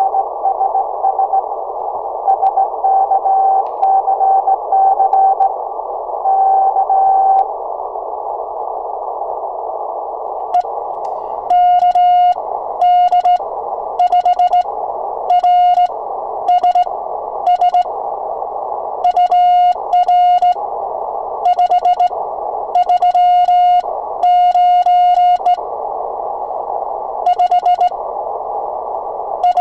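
Morse code (CW) on an Icom shortwave transceiver over steady receiver hiss: for the first seven seconds a fainter incoming Morse signal is heard while the operator writes. Then, from about eleven seconds in, the operator sends by hand on a sideswiper (cootie) key, and the rig's sidetone beeps loudly in dits and dahs, with a click at each keying.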